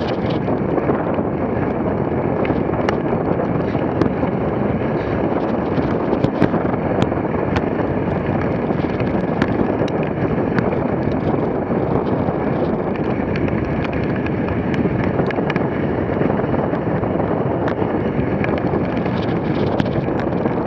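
Steady rush of wind on the microphone of a dogsled moving at about 33 km/h, mixed with the hiss of the sled runners sliding over packed snow, and a few faint clicks.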